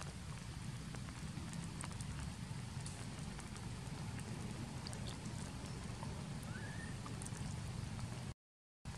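Steady outdoor forest ambience: a low rumbling hiss with scattered faint clicks and one short rising chirp, broken by a brief drop to total silence near the end.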